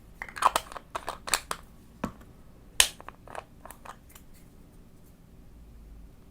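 Slime being played with: a quick run of sharp pops and clicks over the first few seconds, the loudest just before the middle, thinning out to a few faint ticks.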